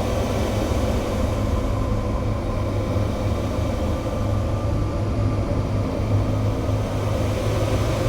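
Experimental noise music: a steady, dense rumbling drone with a strong low hum and several held tones, with no beat.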